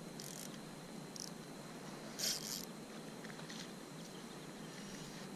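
Quiet paddle strokes on calm water: a few short splashes and drips from a paddle-ski paddle, the loudest about two seconds in, over a steady faint hiss.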